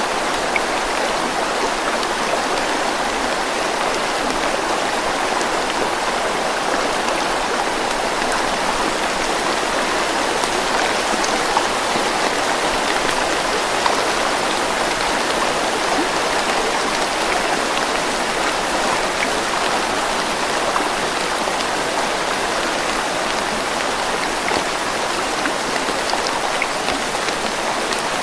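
Steady heavy rain falling and pattering on surfaces, with scattered individual drop ticks.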